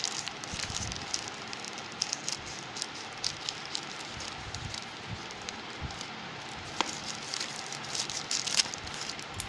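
Plastic courier mailer bag crinkling and crackling as it is handled and cut open with scissors, with many small sharp clicks throughout.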